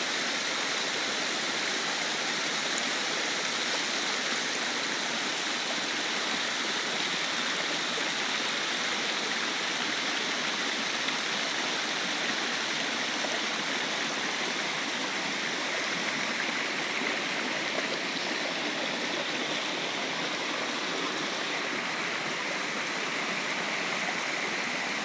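Small waterfall and the stream below it cascading over rocks: a steady, unbroken rush of falling and running water.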